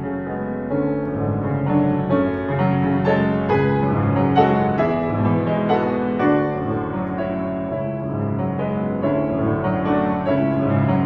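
Grand piano played solo: a continuous run of notes over sustained lower notes and chords.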